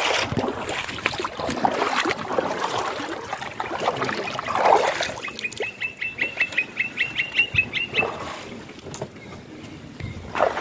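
Feet wading and splashing through shallow floodwater. Then, about five seconds in, a bird gives a quick run of about fifteen high chirps, roughly five a second, for about three seconds.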